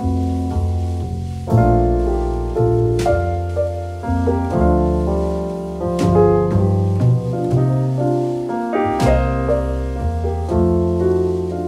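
Background instrumental music led by piano, with sustained notes changing every second or so and a light percussive hit about every three seconds.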